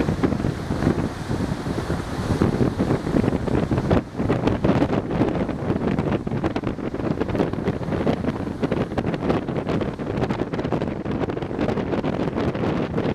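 Wind buffeting the microphone on the open deck of a moving ferry: a steady rush of noise with constant gusty flutter.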